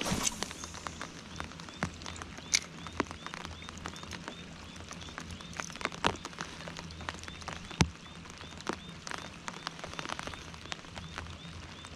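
Raindrops pattering irregularly on the packraft's taut wet fabric deck and the lake surface, with a few sharper drop hits standing out. Under it runs the even ticking of a spinning fishing reel being cranked.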